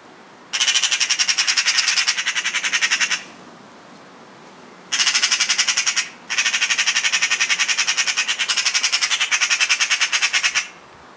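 Eurasian magpies giving their harsh, rapid rattling chatter in three long bouts, the alarm call they use when mobbing a cat in the tree.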